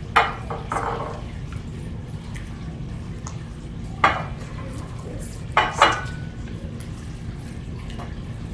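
A few sharp taps and clinks as beakers and small powder bottles are handled on a lab bench while glow powder is sprinkled onto slime: one just after the start, one about four seconds in and two close together near six seconds, over a low steady room hum.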